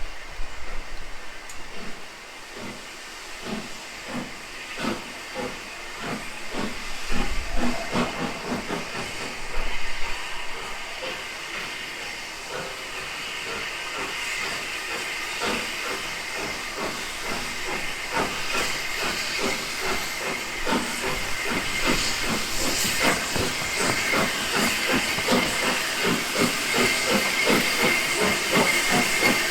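Steam locomotive working under power, its exhaust beats coming quicker and growing louder as it draws nearer, over a steady hiss of steam.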